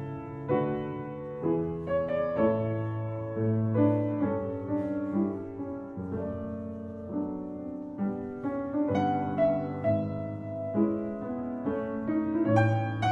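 Background piano music: notes and chords struck one after another, each left to ring.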